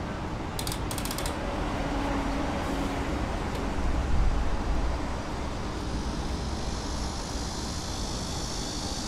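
City street ambience: a steady wash of traffic noise, with a louder low rumble of a passing vehicle about four seconds in. A brief quick ticking rattle comes near the start, and a higher hiss builds from about six seconds in.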